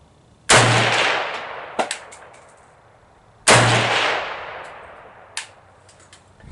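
Two single rifle shots from a Zastava M70 ZPAP AK-pattern rifle in 7.62x39, fired about three seconds apart, each with a long echoing tail that fades over about two seconds. A lighter click follows each shot.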